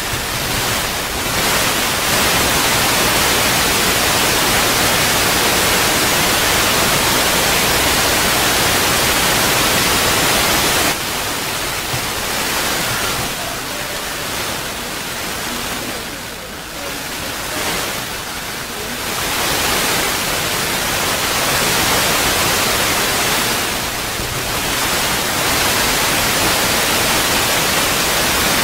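Loud, steady hiss like static, with no howl or other pitched sound standing out; it drops somewhat about eleven seconds in and rises again near twenty seconds.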